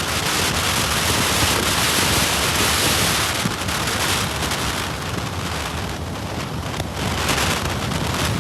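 Wind rushing past a car travelling at about 70 mph on the highway, heard through an iPhone speaker: a steady, dense rush of noise that eases slightly about halfway through and builds again near the end.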